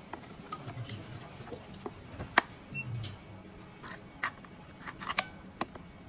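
Scattered plastic clicks and light knocks from handling the AA batteries and fitting the cover back onto a smart deadbolt's battery compartment. The sharpest click comes about two and a half seconds in, with a few more around five seconds.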